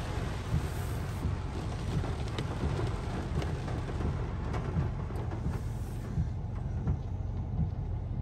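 Low, steady rumble of a car driving slowly, heard from inside the cabin, with rain hissing on the roof and windscreen while the wipers run. The higher hiss eases about six seconds in.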